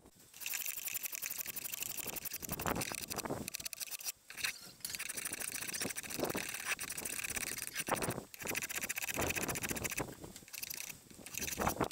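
Spokeshave cutting shavings from the edge of a curved wooden workpiece, with runs of scraping strokes broken by short pauses a few times.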